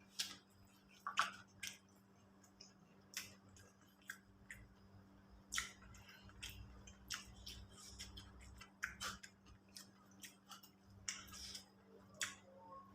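Eating sounds: irregular wet smacks and clicks of chewing, close to the microphone, over a faint steady hum.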